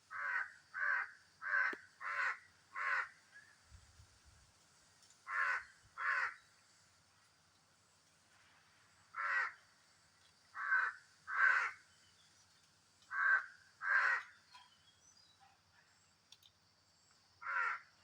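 A bird calling repeatedly in short calls. A quick run of five comes first, then pairs and single calls spaced a few seconds apart, over a faint steady high hiss.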